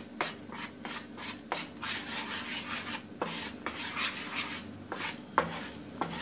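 Wooden spatula stirring and scraping hot, bubbling jaggery-and-ghee syrup around a small nonstick frying pan in quick repeated strokes, with a faint sizzle, as the syrup cooks down and thickens.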